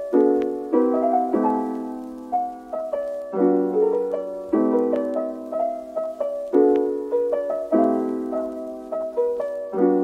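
Background music: piano playing chords, a new chord struck about once a second and left to ring and fade.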